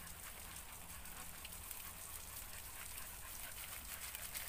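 Orchard sprinklers spraying, the water falling in a steady patter on leaves and grass, like light rain.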